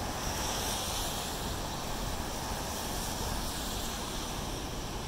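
Steady, even wash of distant ocean surf breaking on a sandy beach, with a light rush of wind.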